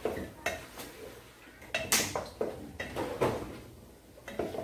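Wooden spoon knocking and scraping against a metal pot while stirring meat being sautéed: a run of irregular clacks, the loudest about two seconds in.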